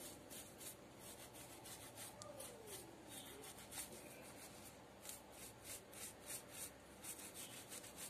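Toothbrush scrubbing the bark of a bonsai trunk with cream soap to clean off fungus: a faint, quick run of brushing strokes, several a second.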